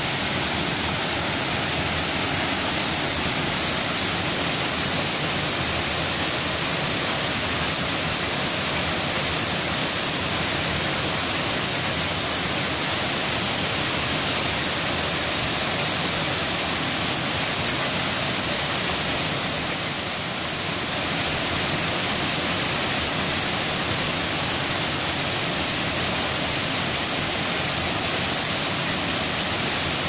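Waterfall pouring into a rocky plunge pool: a steady, even rush of falling water that eases slightly for a moment about two-thirds of the way through.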